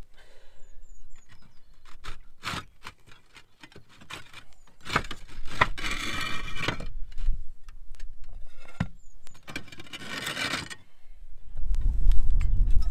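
Clay roof tiles being lifted and slid out of place by hand, with many sharp clicks as tile knocks on tile and two longer scrapes, about five and ten seconds in. A low rumble comes in near the end.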